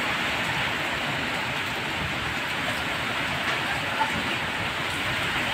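Typhoon wind and heavy rain: a steady, unbroken rush of noise with no let-up.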